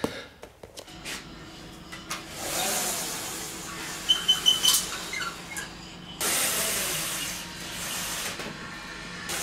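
Window blind being raised: a rushing hiss with a steady low hum underneath and a quick run of clicks about four seconds in.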